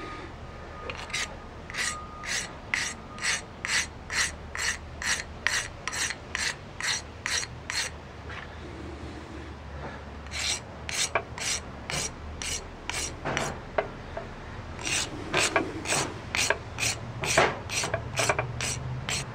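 Hand file rasping across a small stone pipe mouthpiece in quick, even strokes, about two a second. The strokes come in three runs with short pauses between, roughing out the mouthpiece's shape.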